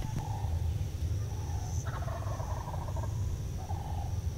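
Wild turkey gobbler gobbling: one full gobble about two seconds in, with shorter, fainter calls before and after it.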